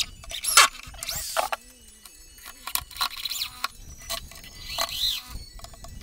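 Power drill driving screws into a plywood speaker cabinet: the motor whines up and falls back in several short spurts, with sharp clicks and knocks in between.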